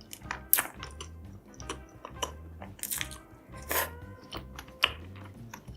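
Close-up eating sounds: sharp crunchy bites and chewing, the loudest crunches about half a second in and near the end, over background music with a low pulsing beat.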